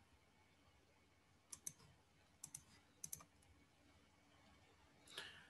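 Near silence broken by a few faint computer clicks in three small clusters, while the document is scrolled.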